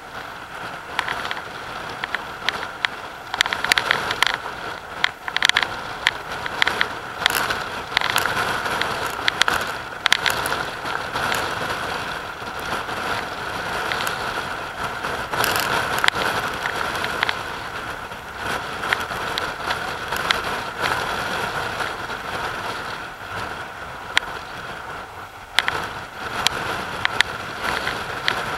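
Rough sea churning and breaking over rocks, with wind gusting and crackling on the microphone, the crackles thickest in the first half.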